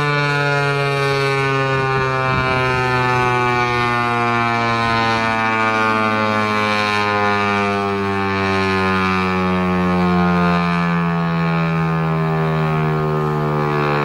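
Federal Signal 508 outdoor warning siren winding down at the end of its wail signal: a loud, many-toned siren howl whose pitch falls slowly and steadily.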